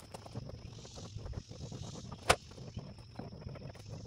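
Footsteps on gravel with small scuffs and ticks, and one sharp click about two seconds in. A steady, high insect chorus swells and fades behind them.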